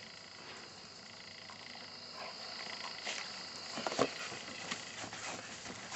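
Faint steady chirring of insects in the background, with scattered light footsteps and rustling on grass and a short knock about four seconds in.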